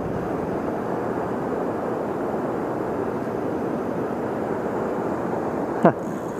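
Steady rushing of river water running over riffles. Near the end comes one brief, sharp sound that drops quickly in pitch.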